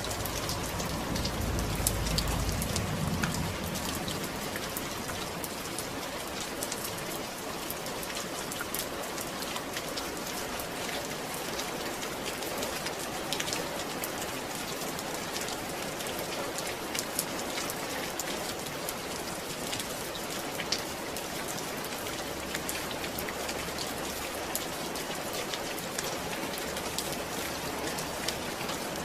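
Steady rain falling on a surface, a dense hiss with many individual drops ticking. A low rumble sits under it for the first few seconds.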